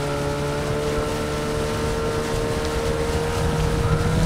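Hangkai 9.8 hp outboard motor running steadily under power, pushing an inflatable boat up onto plane, with a rush of wind and water. The engine's pitch and loudness rise slightly near the end.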